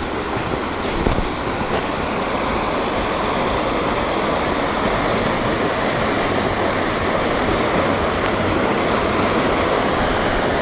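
Shallow stream water rushing over rocks in a riffle: a steady, unbroken rush.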